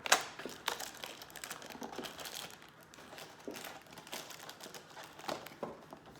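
A LEGO advent calendar door being opened: a sharp snap right at the start, then irregular crinkling and crackling as the cardboard and the small plastic bag of parts inside are handled.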